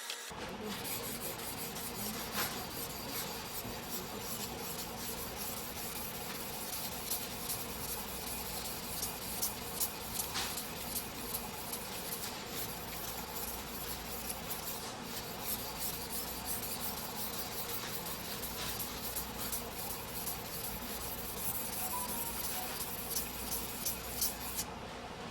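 Single-bevel sujihiki steel blade rubbed back and forth by hand on a whetstone: a steady scraping with many small ticks.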